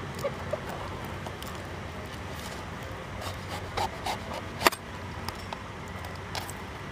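A machete-style knife chopping and shaving the fibrous husk of a trimmed young coconut: a scatter of short, sharp chops and scrapes, the loudest about two-thirds of the way through.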